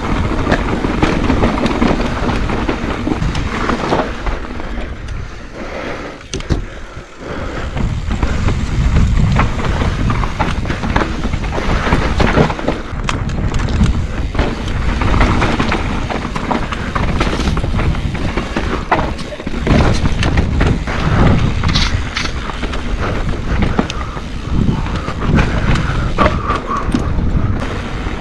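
Mountain bike riding down a rough downhill singletrack: wind on the microphone over tyre noise on dirt, with many short knocks and rattles from the bike over bumps. It eases briefly about seven seconds in.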